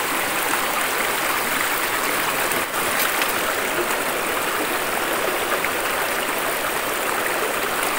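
Shallow rocky river running steadily over stones in small rapids, an even rush of water.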